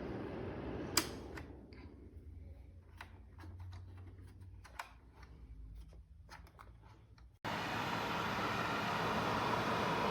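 A sharp click, then scattered light clicks and taps of the heater's plastic parts being handled. About seven seconds in, the sound cuts abruptly to a steady whooshing hum.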